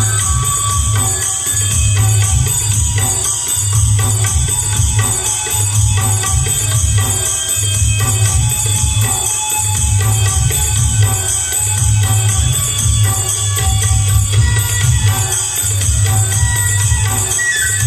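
Chhattisgarhi folk dance music played loud, with a heavy repeating low drum beat under constant tambourine-like jingling.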